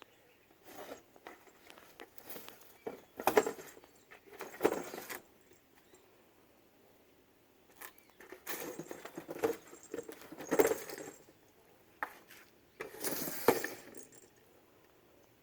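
Intermittent rustling and light clinking of small objects being moved about, in short bursts with quiet gaps between them. The bursts are loudest at about three, four and a half, ten and a half, and thirteen and a half seconds in.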